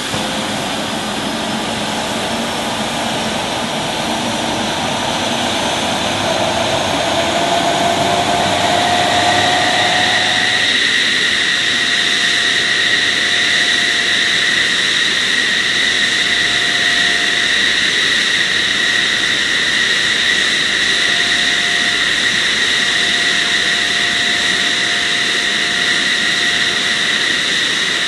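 Twin jet engines of the National Combat Aircraft prototype, General Electric F110 turbofans, spooling up with a rising whine for about ten seconds, then running at a steady high whine.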